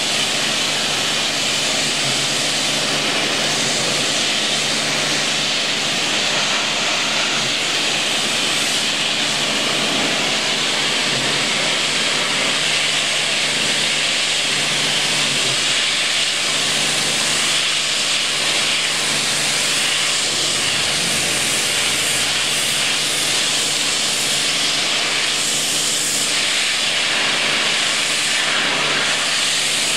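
High-pressure washer jet spraying against a steel hopper: a steady, continuous hiss of water spray with a steady low hum underneath.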